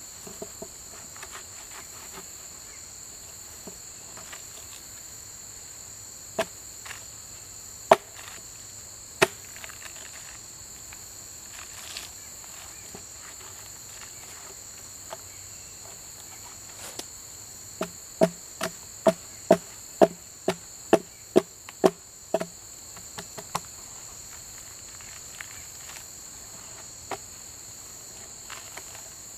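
Hatchet blows on a fallen log's bark: a few single knocks, then a quick run of about eleven blows at about two a second, working the bark loose. A steady high chorus of insects, likely crickets, goes on underneath.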